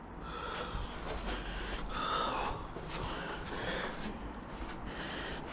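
A person breathing audibly close to the microphone: a run of breaths, one after another, while moving in the dark.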